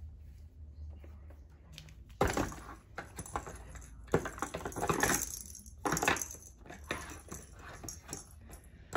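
A cat pawing and scratching at a cardboard cat house, giving uneven bouts of scraping and clattering from about two seconds in.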